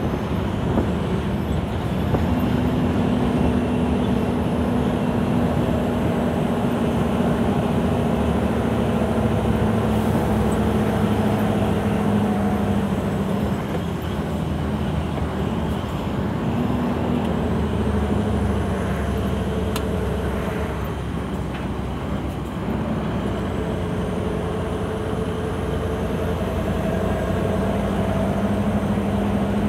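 Scania 164L's V8 diesel engine running under way, heard inside the cab as a steady low drone. The engine note eases and drops about two-thirds of the way through, then picks up again near the end.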